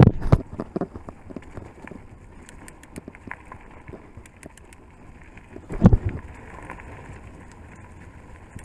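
Scott eSpark 720 full-suspension electric mountain bike ridden over a rough trail: steady tyre and running noise with scattered clattering knocks, and two heavier jolts, one at the start and one about six seconds in.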